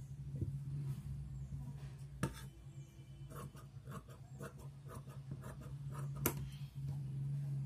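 Large tailor's shears cutting cotton blouse lining cloth on a wooden table: the blades scrape and snip in a run of small ticks, with two sharper clicks. A steady low hum runs underneath.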